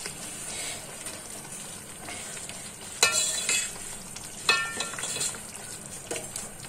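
A steel ladle stirring a thick, bubbling colocasia-leaf curry in a metal pot, over a steady simmering hiss and bubble. The ladle clinks against the pot about three seconds in and again a second and a half later.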